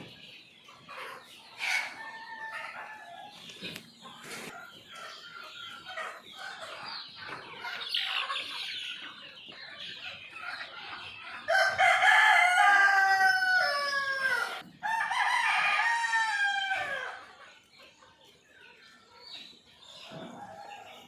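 Chickens clucking and calling, then a rooster crows loudly twice in a row a little past halfway, each crow about two and a half seconds long and falling in pitch at the end.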